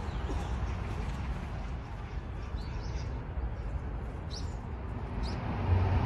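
Outdoor park ambience: a steady low background rumble with a few short, high, rising bird chirps in the second half.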